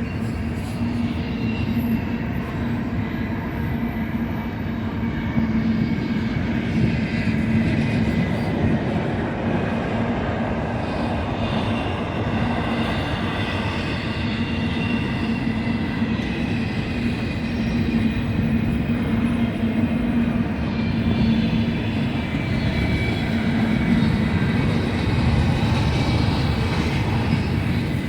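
Long freight train's cars rolling steadily past at track side, a continuous rumble with faint high-pitched wheel squealing over it.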